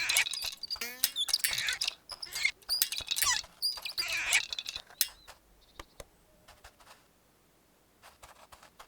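Squeaky, chirping cartoon sound effects in quick bursts for about five seconds, then a few soft, scattered clicks.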